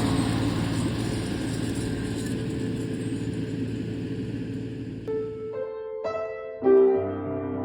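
Steady vehicle running noise that fades away, then piano music comes in about five seconds in, with a louder chord near the end.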